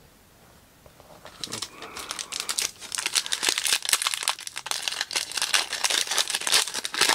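A trading-card pack wrapper being torn open and crinkled by hand. It starts about a second in and grows into dense crackling.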